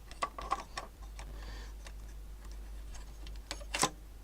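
Scattered small clicks and taps of tools and components being handled on a vintage TV chassis, with one louder click near the end, over a steady low hum.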